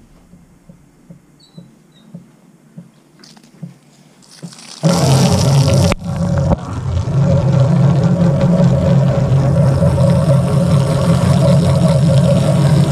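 Mostly quiet with a few faint clicks, then about five seconds in a pressure washer starts spraying: a loud, steady machine hum with the hiss of water blasting across the board and onto the microphone, which dips briefly about a second after it starts.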